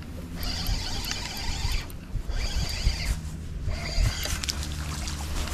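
Spinning fishing reel cranked in several short bursts of high whirring, over a steady low rumble.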